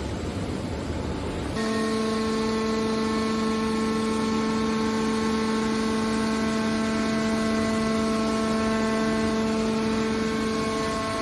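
Hydraulic baler's power unit running: a steady machine hum with a pitched whine that sets in suddenly about a second and a half in, after an even machine noise.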